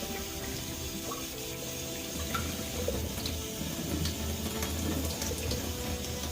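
Water running steadily, with a low hum underneath.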